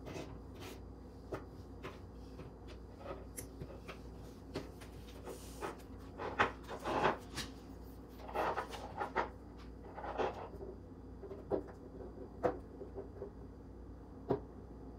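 Small toys being handled and set down on a cardboard box on a wooden table: scattered light knocks and clicks with some rubbing, a cluster of louder knocks in the middle.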